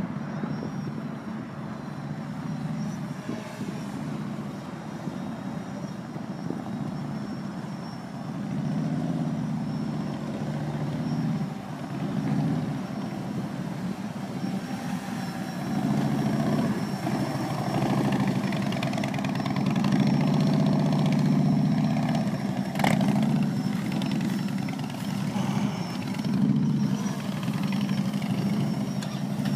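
Motorcycle engines running at low speed, swelling and fading as the bikes move. A sharp click about 23 seconds in.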